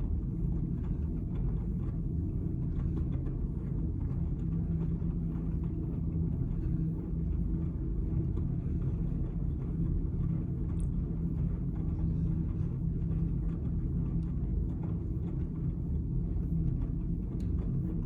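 Miele W1 front-loading washing machine running in its main wash with a full load of towels: a steady low rumble with a constant hum.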